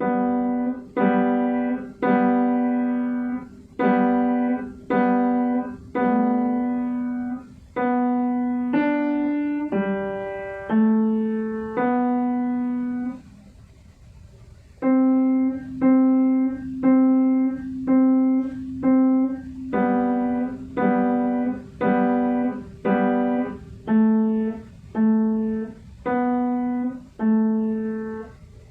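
Piano playing a slow, simple melody one note at a time, each note struck and left to ring out, with a short pause about halfway through.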